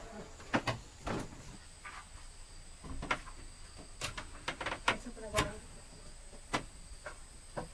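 Irregular knocks and light clatters of someone moving about a wooden house: footsteps on wooden boards and the handling of a plastic food container and cup. A faint steady high-pitched tone comes in about a second and a half in.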